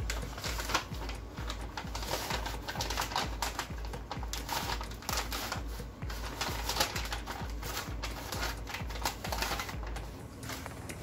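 Background music with a steady bass pulse under a dense run of quick clicks.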